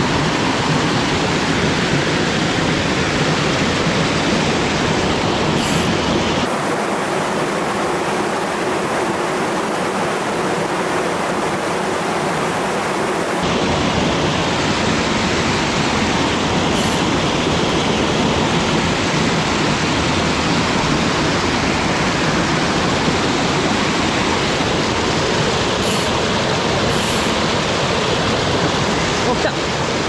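Mountain stream rushing over small cascades between boulders: a steady rush of white water, close by.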